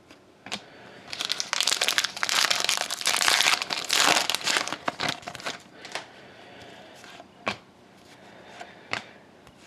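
Foil trading-card pack wrapper crinkling as it is handled for about four seconds, followed by a few light clicks of trading cards being shuffled.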